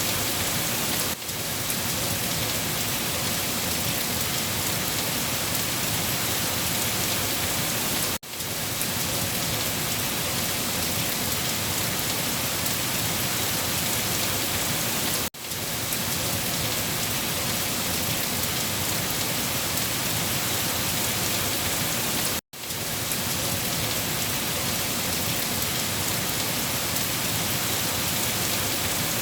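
Steady heavy rain falling, a dense even hiss. The sound dips sharply for a moment about every seven seconds.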